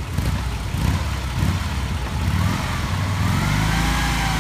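Steyr-Puch Haflinger's small air-cooled flat-twin engine idling, then revved up and eased back down in the last couple of seconds, its pitch rising and falling once.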